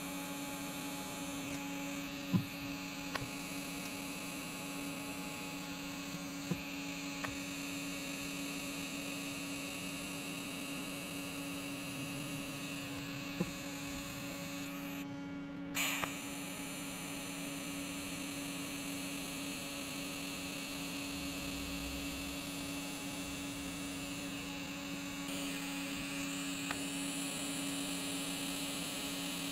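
TIG welding torch arc during TIG brazing, a steady electric buzz and hiss as filler rod is fed in. The arc breaks off for about a second midway and restarts, with a few faint ticks along the way.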